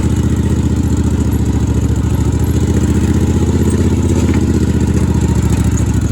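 ATV engine running steadily under way, a low even pulsing throb.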